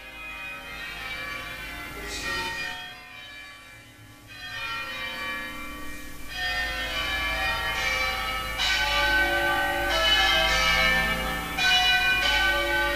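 Church bells ringing, several bells struck in turn, each note ringing on and overlapping the next. The ringing fades in at the start and grows steadily louder.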